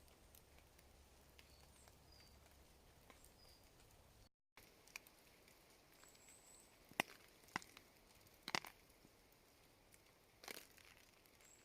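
Near silence in wet woodland: scattered sharp drips tapping, the loudest about seven and eight and a half seconds in, with a few faint, short, high bird chirps in the first four seconds.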